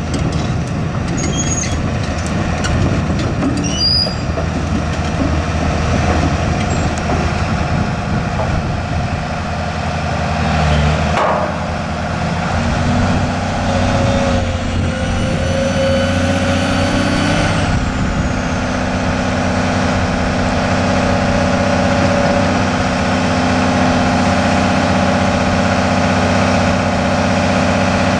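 Case CX330 excavator's Isuzu six-cylinder turbo diesel running under hydraulic load as the boom and arm are worked. A higher whine rises about halfway through, holds for a few seconds and falls away, and the engine note then settles steadier and a little higher.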